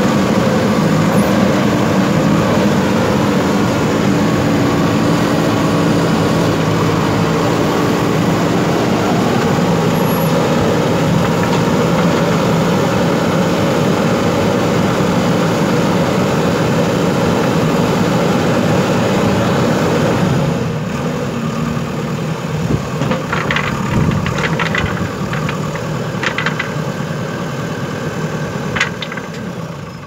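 JCB 3DX Super backhoe loader's diesel engine running steadily with a low drone, which drops away about two-thirds of the way through. After that come a few scattered sharp clicks and clinks.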